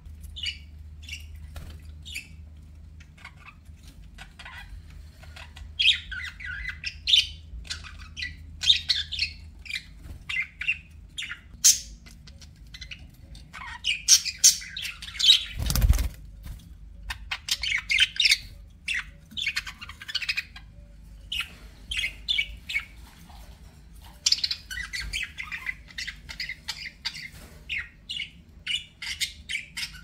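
Budgerigars chirping and chattering in a rapid, irregular run of short high calls, with a single thump about halfway through.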